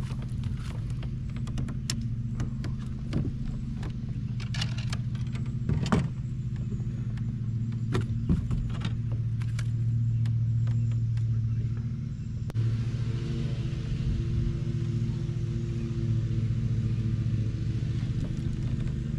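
A motor runs steadily with a low drone that swells for a few seconds past the middle. Sharp clicks and knocks sound over it, several in the first nine seconds, while a hooked bass is reeled in to the kayak.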